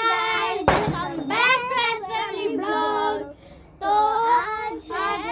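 Children singing a song together, with held and gliding notes and a short pause past the middle. One sharp clap sounds about a second in.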